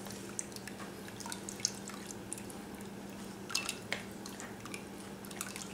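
Au jus dripping through a fine-mesh strainer into a glass measuring cup of broth, with scattered small drips and soft taps as a wooden spoon presses the strained onions. A faint steady hum runs underneath.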